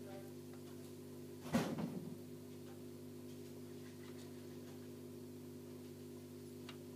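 Low steady electrical hum, with a single sharp knock about a second and a half in that rattles briefly and dies away within half a second.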